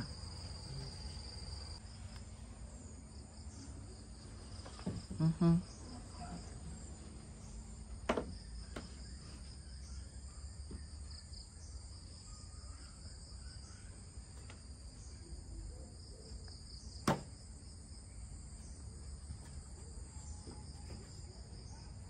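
Steady high-pitched chorus of insects chirring in the garden, pulsing evenly throughout. A brief vocal sound comes about five seconds in, and two sharp clicks near eight and seventeen seconds.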